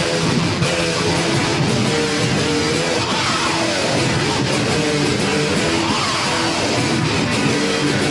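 A human voice imitating a distorted electric guitar: a rock riff of held, gritty notes with a few bends in pitch, made entirely with the mouth and throat.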